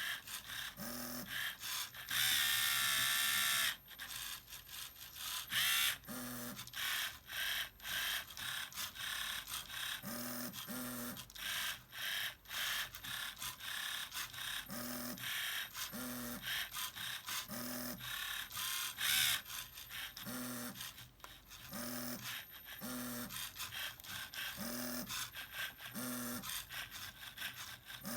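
Small LEGO Mindstorms electric motors driving a printer mechanism: short whirs repeating about once a second, with clicks and rattles of plastic parts between them and one longer, louder whir a couple of seconds in.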